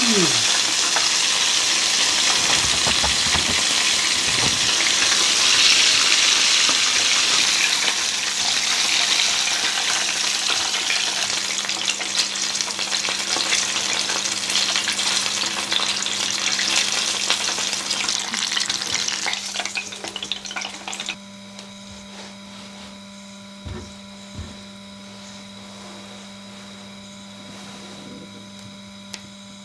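Battered chicken deep-frying in a pot of hot oil: a dense, steady crackling sizzle. It thins after about twelve seconds and cuts off about two-thirds of the way through, leaving a much quieter low steady hum and two soft knocks.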